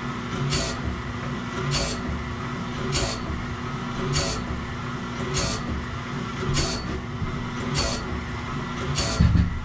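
Wood-Mizer BMS250 band-blade sharpener running on a 10-degree sawmill band blade: the grinding wheel grinds one tooth about every 1.2 seconds, each a short high hiss over a steady motor hum. A low thump comes near the end.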